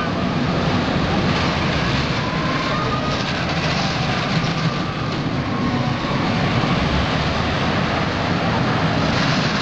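Colossus steel roller coaster train running along its track through the layout: a steady, even mechanical noise with no breaks.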